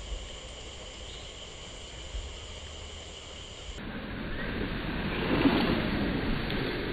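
Insects trilling in steady high tones over a low rumble. About four seconds in, the sound switches abruptly to a broad rushing noise that swells and then eases slightly.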